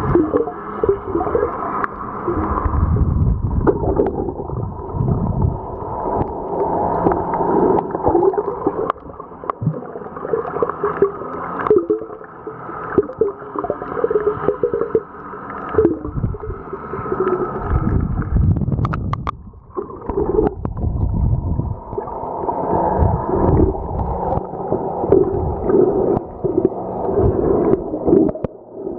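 Muffled underwater sound of water moving and gurgling around the camera, with a wavering hum and repeated low surges, and a few sharp clicks about 19 seconds in.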